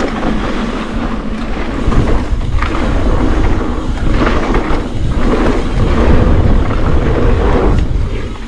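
Wind buffeting the camera microphone over the rumble of tyres on a dirt trail while a mountain bike is ridden fast, a loud uneven rumble that swells and dips.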